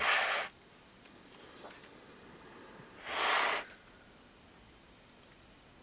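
Pages of a coloring book being turned: two brief papery swishes about three seconds apart.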